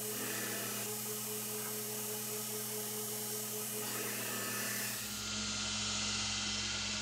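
Belt grinder running with a steel ladder-Damascus knife blank pressed against its abrasive belt, grinding the blade thinner: a steady hum and hiss. The sound shifts slightly about five seconds in.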